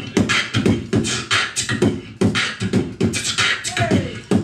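Beatboxer performing a hip-hop beat with the mouth: kick-drum thumps and snare-like snaps in a quick, steady rhythm, with a falling sung glide near the end.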